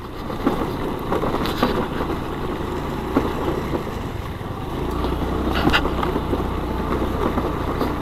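Suzuki Access 125 scooter engine running as it rides over a rough, rocky off-road track, with wind noise and a few scattered knocks from the bumps. A low engine hum grows louder about five seconds in.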